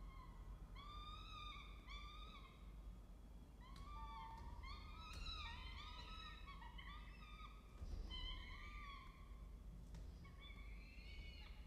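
Peregrine falcon chicks giving repeated short begging calls while being fed, each call rising and falling in pitch. A few spaced calls at first, then many overlapping calls from about four seconds in.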